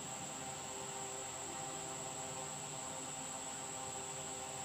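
Steady background hum and hiss with a constant high-pitched whine; no distinct chewing or other events stand out.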